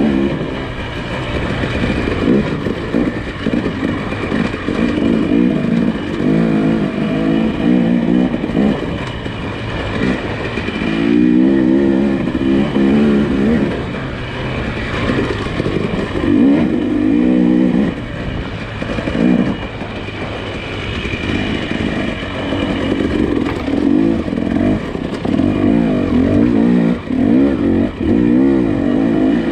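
SUV engine driving a rough off-road trail, its pitch repeatedly rising and falling as the throttle is worked in short bursts of revving.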